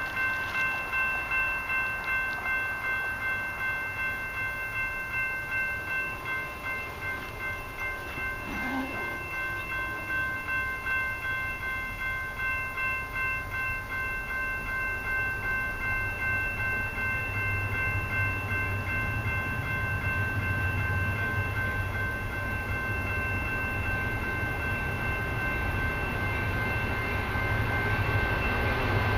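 A warning bell ringing steadily at about two strikes a second, typical of a railway crossing or station warning bell signalling an approaching train. Under it, the low rumble of approaching CN freight diesel locomotives grows from about halfway and is loudest near the end.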